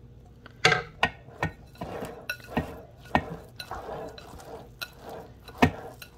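Spoons knocking and scraping against a ceramic mixing bowl while broth is worked into seitan sausage dough: a string of irregular sharp knocks and clinks.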